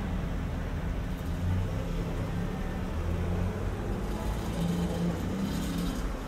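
Steady low rumble of street traffic, a road vehicle's engine humming close by, with a short hiss near the end.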